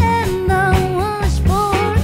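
Small band playing live: double bass notes and a drum kit under acoustic and electric guitar, with a woman singing a gliding melody over them.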